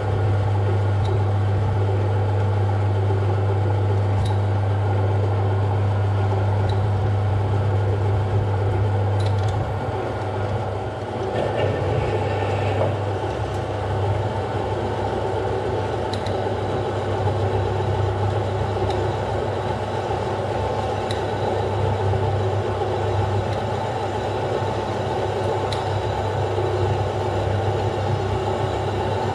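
Metal lathe running slowly with an off-centre, unbalanced workpiece in the chuck while a twist drill in the tailstock chuck bores a hole through it: a steady motor hum throughout. The sound dips briefly and then grows brighter and louder about a third of the way in.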